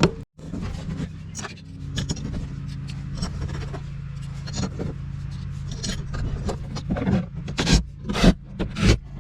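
Screws being started by hand and turned into a metal heat sink: small scrapes, rubbing and clicks of metal parts, with sharper knocks coming louder and more often near the end.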